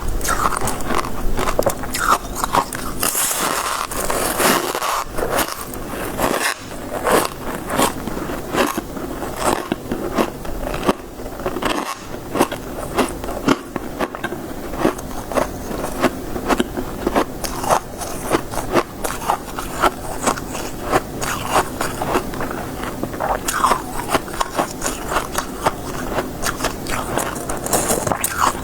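Crisp freezer frost being bitten and chewed close to the microphone: a dense, irregular run of loud crunches, several a second.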